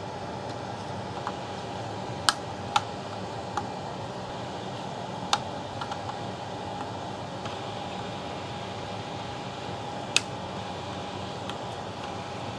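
Cutters snipping the excess component leads on a circuit board: a few sharp, separate clicks spread over the stretch, over a steady fan-like hum.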